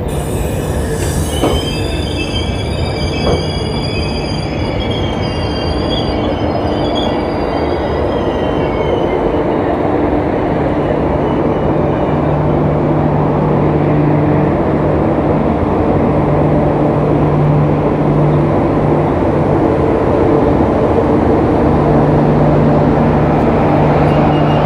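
Indian Railways LHB passenger train rolling slowly along the platform, its wheels squealing high in the first several seconds. Then a steady low hum grows louder toward the end as the luggage-brake-and-generator car, with its diesel generator sets, comes close.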